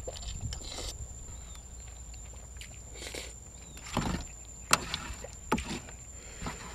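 A person eating khanom jeen rice noodles in curry sauce with fresh vegetables: irregular chewing and slurping noises, with one sharp click about two-thirds of the way through.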